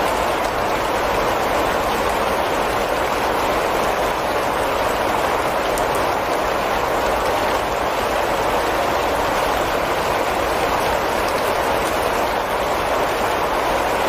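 Steady rain falling on foliage: an even, unbroken hiss with no single drops standing out.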